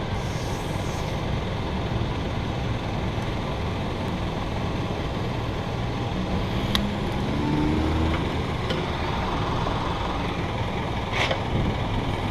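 A petrol pump nozzle filling a motorcycle's fuel tank, over the steady running of a vehicle engine, with a brief rise in engine pitch about seven seconds in and a couple of sharp clicks.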